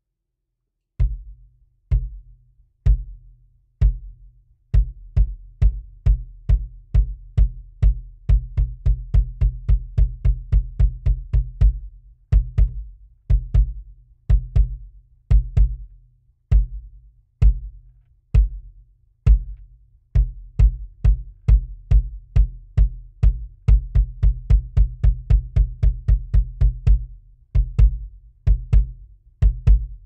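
Bass drum kicks from a Tama Accu-Strike beater on a pedal, striking a 20-inch Gretsch Catalina maple bass drum with a Remo PowerSonic head. Each hit is a sharp attack with a deep ring. The strokes start about a second in, spaced about a second apart, then pick up into faster patterns with quick runs of strokes.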